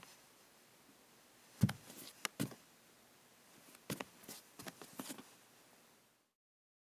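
A woman's bare feet stepping on a wooden floor: soft, light footfalls in two short runs of a few steps each. The sound cuts to dead silence near the end.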